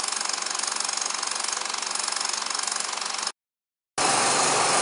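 Old 35mm motion picture projector running, its mechanism chattering in a fast steady flutter. It cuts off about three seconds in, and after a short silence a louder, brighter recording of the projector running starts.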